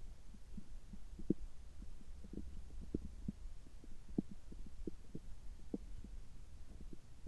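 Human stomach and gut sounds shortly after a gastroscopy: many small irregular pops and gurgles, a few each second, over a low steady hum.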